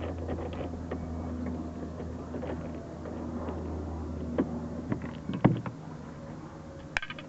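Small clicks and knocks of a screw being worked out of a plastic liftgate trim panel and the part being handled, with a sharper knock at about four and a half seconds and two more near five and a half and seven seconds. A steady low hum runs underneath and stops about five and a half seconds in.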